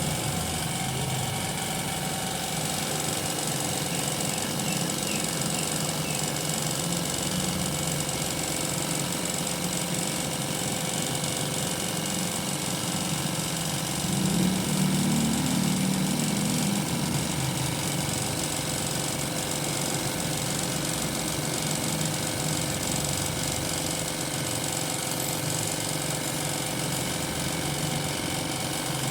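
Piston air compressor running steadily while spray painting, with a steady hiss over it. It gets a little louder for a couple of seconds about halfway through.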